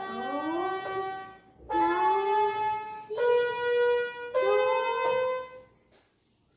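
Toy electronic keyboard playing four single notes one after another, about a second each, every note with a tone sliding upward under it. The last note fades out near the end.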